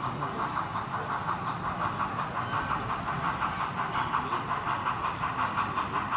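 Model steam locomotive's DCC sound decoder playing a quick, steady exhaust chuff through its onboard speaker, getting slightly louder near the end.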